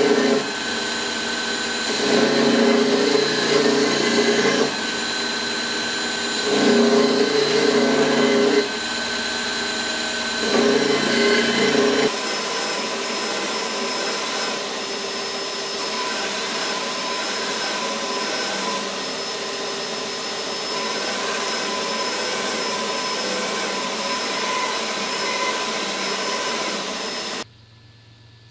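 Belt grinder running as a steel sword blade is pressed against the abrasive belt, grinding in four louder passes over the first twelve seconds, then grinding steadily. Near the end the sound cuts off suddenly, leaving only a faint low hum.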